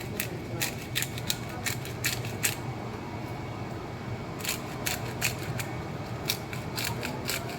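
Pepper grinder being twisted over meat, giving a run of sharp, ratcheting clicks in two spells with a short pause between.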